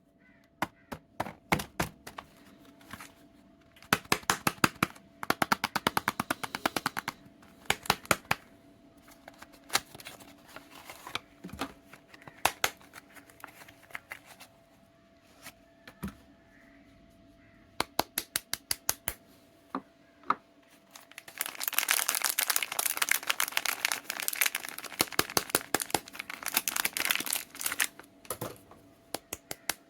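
Soap and its packaging handled close to the microphone: runs of sharp clicks and taps, then a long stretch of dense crackling about two thirds of the way through.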